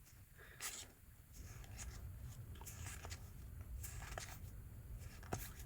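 Faint rustling and crinkling as a Pokémon booster pack's foil wrapper is opened and the trading cards inside are handled, with a few soft ticks.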